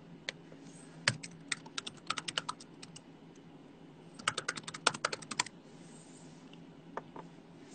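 Typing on a computer keyboard: two quick runs of key clicks, each lasting about a second and a half, with a pause between and a few single clicks.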